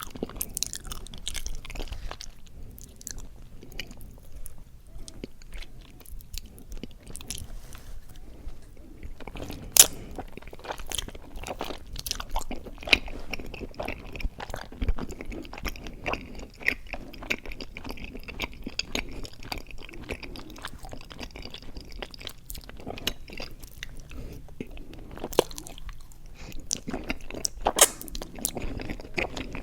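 Close-miked chewing of mochi ice cream: irregular wet mouth clicks and smacks, with a few sharper bites, the loudest about ten seconds in and near the end.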